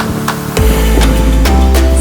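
Background music with a steady beat; a deep bass line comes in about half a second in.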